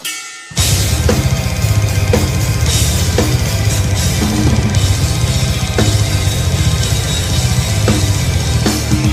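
Acoustic drum kit played at speed to a recorded death metal song: after a half-second break right at the start, fast, even bass drum strokes run under snare hits and cymbal wash, with the song's low instruments underneath.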